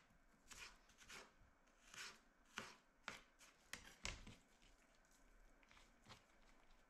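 Knife slicing an onion on a cutting board: faint, irregular knocks, thinning out near the end.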